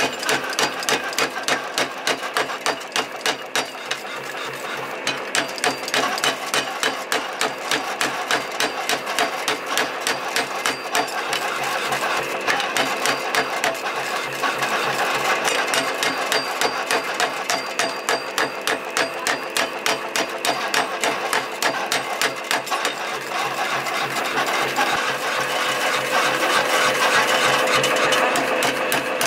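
Mechanical power hammer pounding a red-hot steel bar, an old transmission half-shaft being forged into an axe, in a steady run of quick metal-on-metal blows, a couple a second.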